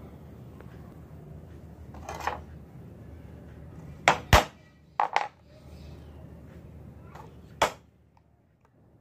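A small claw hammer tapping a metal punch or nail set on a thin wooden scissor blade against a tabletop, to make the pivot hole. Several sharp metallic knocks come mostly in pairs, the loudest about four seconds in.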